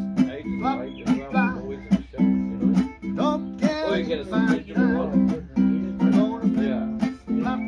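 Ukulele strummed in a steady rhythm, the chord restruck every fraction of a second, with people's voices over it.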